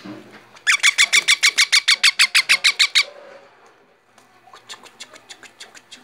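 Baby parrot giving a fast run of harsh squawks, about eight a second for two seconds or so, followed near the end by a fainter, softer run of calls.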